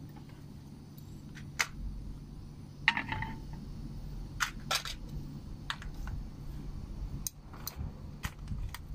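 Scattered light clicks and knocks of kitchen utensils and dishes being handled, over a low steady hum.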